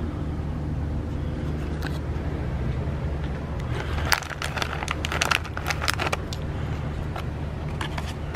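Plastic packets of cat treats crinkling and rattling as a hand rummages through them, in a burst of about two seconds midway, over a steady low rumble.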